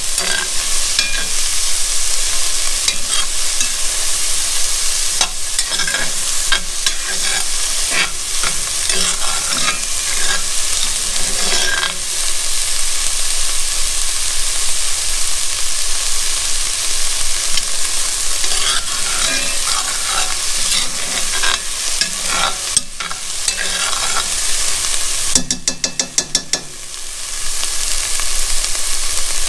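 Diced onions sizzling in hot oil in a cast-iron Dutch oven, with a metal spoon stirring and scraping against the pot. Near the end the sizzle dips briefly under a quick run of light taps.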